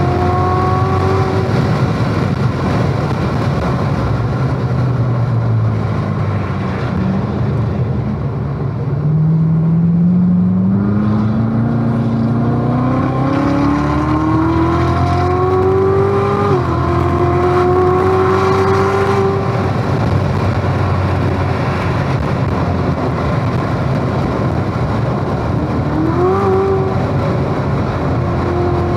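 A sports car's engine at speed on a track, heard from inside the cabin, with steady wind and tyre noise. The engine lifts off early, then pulls from low revs with a long, steadily rising note. About sixteen and a half seconds in the pitch drops sharply at a gear change, the note holds, and a brief rev comes near the end.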